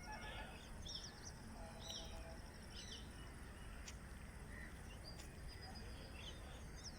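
Faint background ambience with scattered short, high bird chirps.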